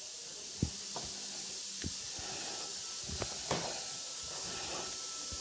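Hands rubbing and tossing steamed couscous grains in an earthenware bowl, working in oil or butter to keep the grains separate: a soft steady hiss with a few faint taps.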